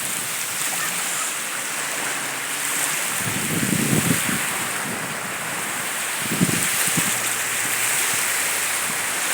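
Indian Ocean surf washing steadily onto the beach, with wind gusting against the microphone in a few low thumps.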